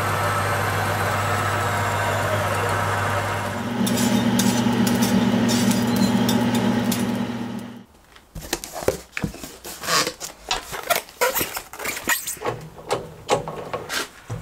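Electric power feed unit driving a lathe's leadscrew, running with a steady motor hum that steps up in pitch and gets louder about four seconds in, then stops a little past halfway. Then a cardboard box's flaps are opened and its packing handled, in a quick irregular series of crackles and rustles.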